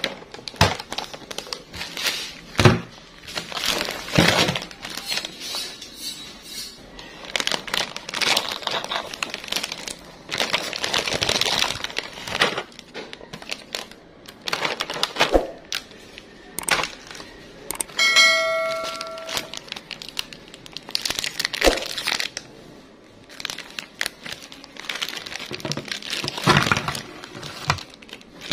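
Plastic snack packaging crinkling and crackling as it is handled and torn open, with light clicks and taps of wrappers and cookies on a plate. A short steady tone sounds once, about two-thirds of the way through.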